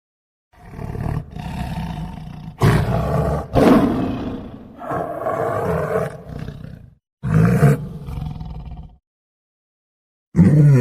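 A large animal roaring in a series of loud, deep calls, the loudest a little under three seconds in, stopping about nine seconds in and starting again just before the end.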